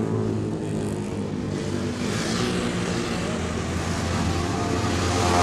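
Motorcycle engine idling steadily with an even, low pitch.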